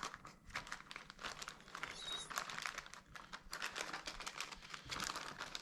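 Plastic zip-lock bags of game pieces faintly crinkling and crackling in irregular bursts as they are pressed and squeezed into a game box.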